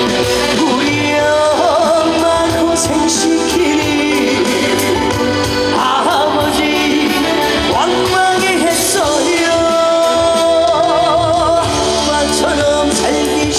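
Live Korean trot song: a band or backing track with a melodic lead line that wavers in pitch, and some singing.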